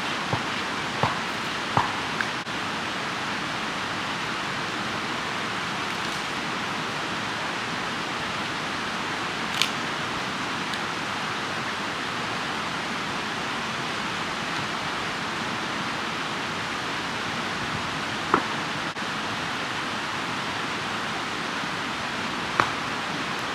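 Campfire burning with a steady hiss and an occasional sharp crackle or pop, a few close together at the start and then single ones spaced several seconds apart.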